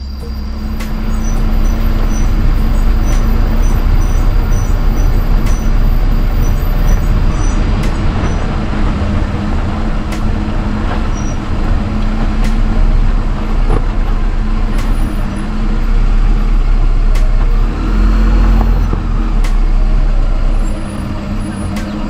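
A car driving on a rough dirt road: steady engine and tyre rumble, with occasional knocks from stones and bumps.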